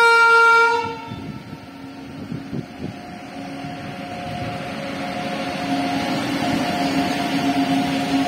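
WAG9 electric locomotive sounding a single horn blast of about a second. After it, the locomotive's steady hum and the rumble of its wheels on the rails grow steadily louder as it approaches, hauling loaded freight wagons.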